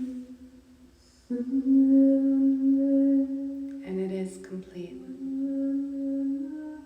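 A singing bowl's steady tone fading away, then long held vocal tones like humming or chanting: one note comes in suddenly about a second in, and a second, lower note joins a few seconds later.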